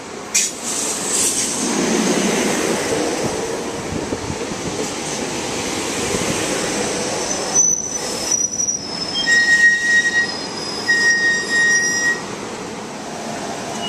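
SEPTA Silverliner IV electric multiple-unit commuter train pulling into the platform, its wheels rumbling on the rails. From about halfway in, high-pitched squealing comes and goes as it brakes to a stop.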